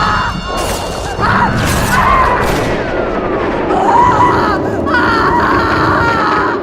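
Layered sound effects over dramatic music: a woman crying and screaming, with booms and crashes of gunfire, and a slow falling-then-rising alarm wail.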